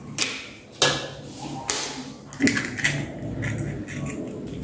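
Raw eggshells being cracked with a kitchen knife: a series of sharp taps and cracks, about five or six in all, with a short gap between them.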